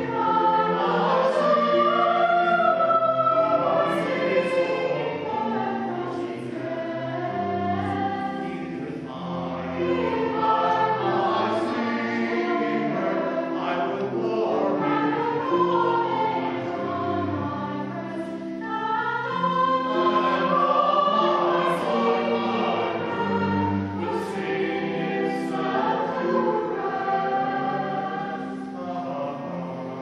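Mixed choir of men's and women's voices singing an Irish song in parts, in long phrases with short breaks between them roughly every nine or ten seconds.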